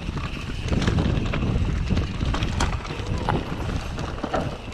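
Specialized Enduro Expert Evo mountain bike descending a dirt forest trail: knobby tyres rumbling over loose ground, with frequent clicks and rattles from the bike, and wind noise on the microphone.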